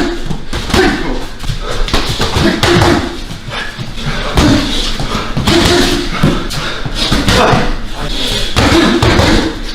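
Punches and kicks landing on bodies as sharp slaps and thuds, many in quick succession, mixed with fighters' grunts and exhalations and shouting from the corners, echoing in an empty arena.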